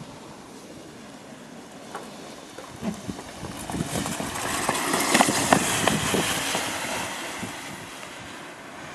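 Ground fireworks hissing and crackling on the asphalt, swelling about four seconds in with a run of sharp crackles and then dying down toward the end.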